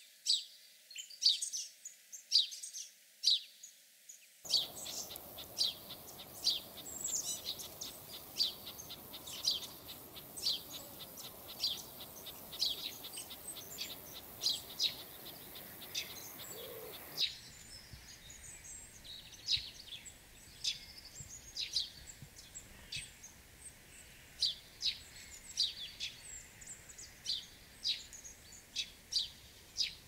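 Small songbirds chirping: short, high chirps repeated several times a second. A faint, steady background hiss comes in about four seconds in and drops away about seventeen seconds in.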